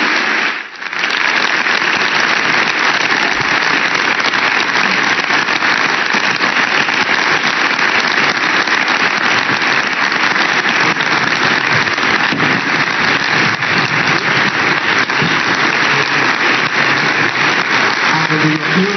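Audience applauding: steady, dense clapping that dips briefly just under a second in, then carries on evenly.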